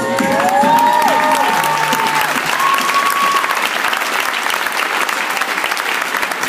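Gymnasium crowd applauding at the end of a dance routine, a dense clatter of clapping, with a few voices calling out in held, gliding cries during the first three seconds or so. The clapping thins slowly near the end.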